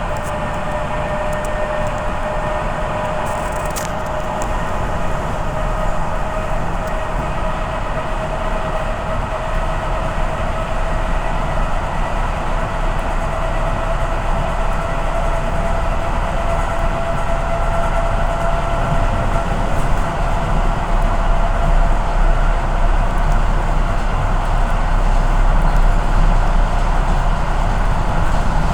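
Train running, with a steady rumble and a whine that slowly rises in pitch as it gathers speed, growing louder toward the end.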